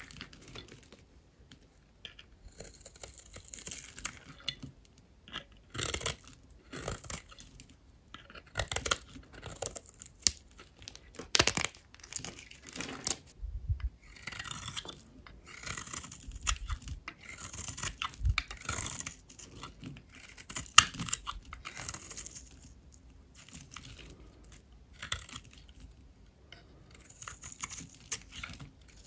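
Knife cutting through dry bar soap: an irregular run of short cutting and scraping strokes, some ending in sharp clicks, with a few brief pauses.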